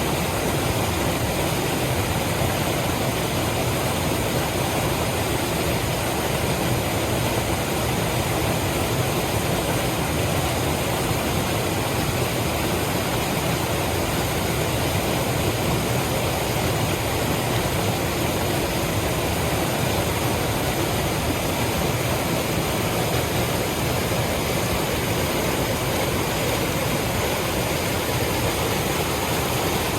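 Steady, unbroken rush of running water, heavy in the low end.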